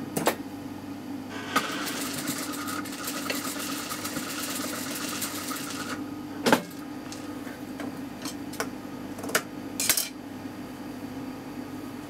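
Toyota sewing machine stitching a seam for about four and a half seconds, a fast even rattle over the steady hum of its motor. After that come a handful of sharp clicks as the work is handled at the machine.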